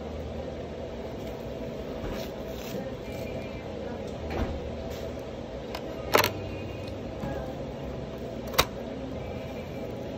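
Steady low background hum with three sharp clicks, about four, six and eight and a half seconds in, the loudest near six seconds: a knife knocking against a metal sheet pan while raw beef tenderloin is trimmed by hand.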